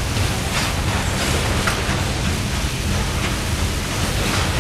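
Loaded coal gondolas rolling steadily past under a coal sprayer, the water spray hissing onto the coal loads, with faint wheel clicks about every half second and a steady low engine drone underneath.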